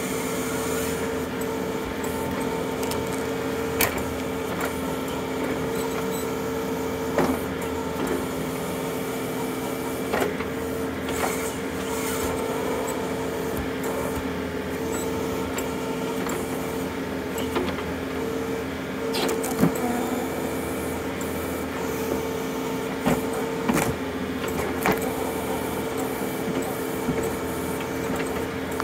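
John Deere compact utility tractor's diesel engine running steadily under load with a constant hydraulic whine as the backhoe digs out a tree stump. Occasional sharp knocks and cracks come from the bucket and roots as the stump is pried loose.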